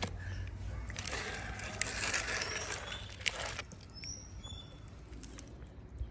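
Thin plastic food tray crinkling and clicking as it is handled and set down on paving stones, for about two and a half seconds, then a few faint high bird chirps.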